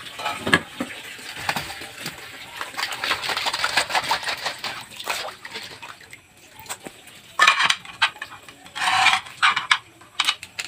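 Live blue swimmer crabs being handled in a stainless steel basin of water: water sloshing and dripping, with crab shells and legs clicking and scraping against the metal. Two louder, noisier bursts come in the last few seconds as a crab is lifted out and set in a metal pan.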